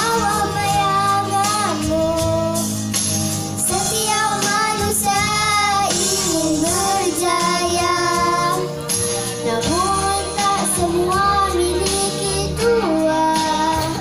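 Young girls singing a song into microphones over instrumental accompaniment, the melody gliding between long held notes, amplified through a hall's sound system.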